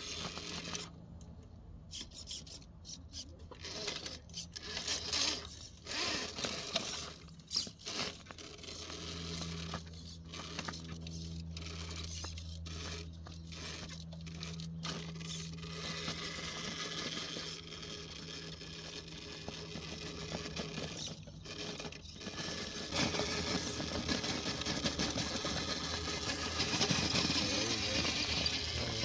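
Scale RC rock crawler climbing a granite crack: a low steady whir from its electric motor and gears, with its tyres scraping and scrabbling on the rock. The sound gets louder near the end.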